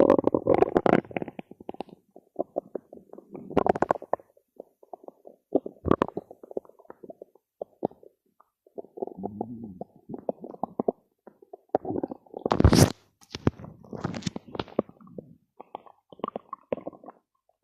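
Stomach growling: irregular gurgles and bubbling rumbles in short bursts with brief gaps between, the loudest burst about two-thirds of the way through.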